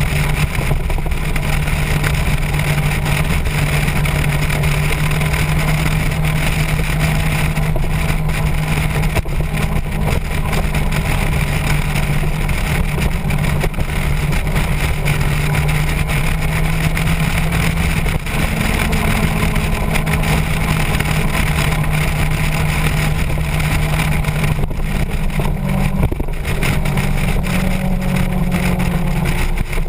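Motorcycle engine running steadily at cruising speed, with wind rushing over the microphone. The engine's pitch steps up a little about two-thirds of the way in and drops back near the end.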